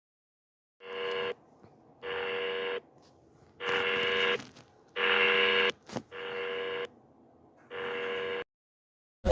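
Emergency alert tone: a buzzy electronic beep sounding six times, each beep just under a second long, with uneven pauses between them.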